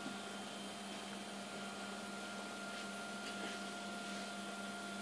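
Steady electrical hum with a faint higher whine over a constant hiss, from running laboratory test equipment.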